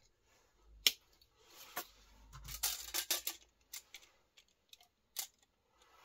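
Victorinox Ranger 78 pocket knife being handled, its tools clicking and snapping: one sharp snap about a second in, a quick run of clicks in the middle, then a few single clicks.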